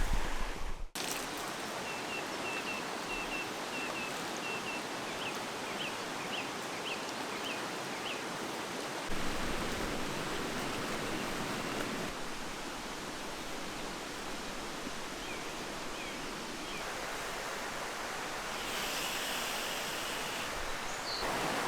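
River water rushing steadily. A series of short high chirps sounds over it for several seconds, with a few more later.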